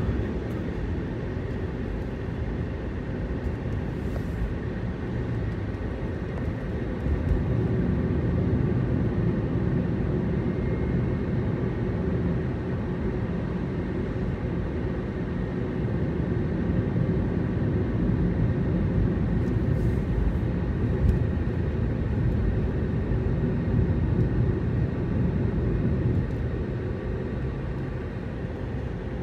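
A car driving along a road: a steady rumble of engine and tyre noise, growing louder for a long stretch in the middle and easing off near the end.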